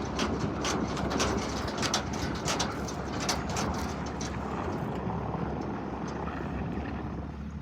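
A truck engine running steadily under many sharp knocks and rattles, which thin out about halfway through.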